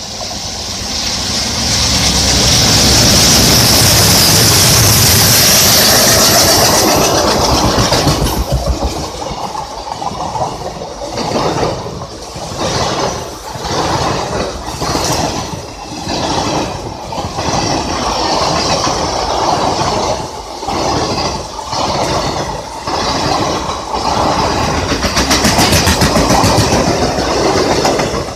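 Express train hauled by two diesel locomotives passing close: a loud, dense engine noise for the first several seconds, then the coaches rolling by with a regular clickety-clack of wheels over rail joints, about one beat a second.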